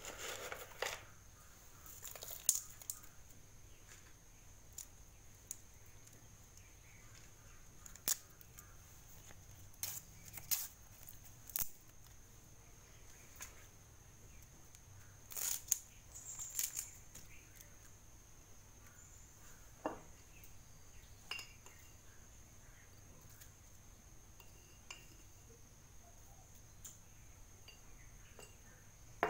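Scattered small clicks and clinks of food being handled in a metal mixing bowl as chicken pieces, leaves and spice powder go in, over a faint steady high-pitched whine.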